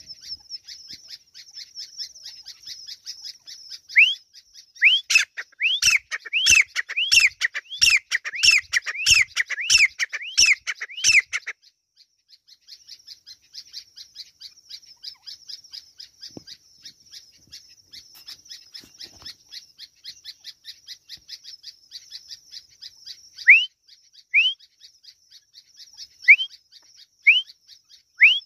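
Grey francolin calling: a run of about a dozen loud, short rising notes at about two a second for several seconds. After a pause, single rising notes come about once a second near the end. A fast, high, steady trill runs underneath throughout.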